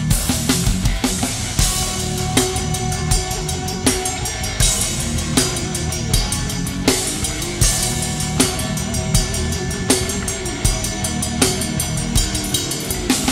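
Thrash metal drum kit played fast: a dense run of bass-drum strokes under sharp accented hits about every three-quarters of a second and a constant wash of cymbals.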